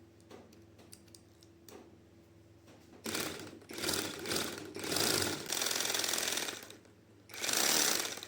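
Woodworking tool at work: a few faint clicks, then from about three seconds in, five loud, noisy bursts of a second or so each, with short gaps between them.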